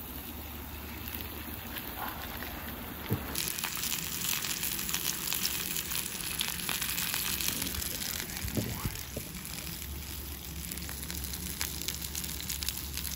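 Chicken sausages frying in olive oil in a pan on a small gas camping burner: a steady sizzle full of small crackles and spits, louder from about three seconds in.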